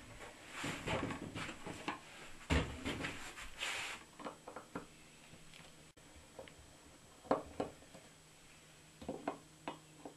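Handling noises on a wooden workbench: irregular clicks, knocks and scrapes as a small screwdriver is picked up and set into the screws on an LED floodlight's circuit board. They are busiest in the first few seconds, then come as a few scattered clicks with short pauses between.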